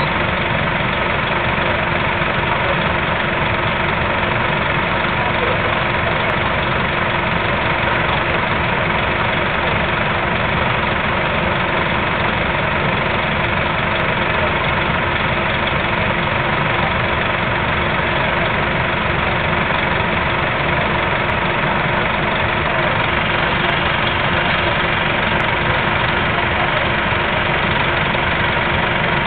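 Nova Bus RTS transit bus engine idling steadily at a constant level.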